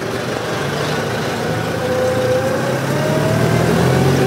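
New Holland farm tractor's diesel engine running under load, its revs building in the second half, with a whine that climbs steadily in pitch.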